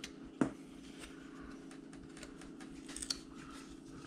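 Carving knife cutting and paring shavings off a small wooden carving: scattered light clicks and scrapes, with a sharp click about half a second in and a cluster of clicks near three seconds, over a steady low hum.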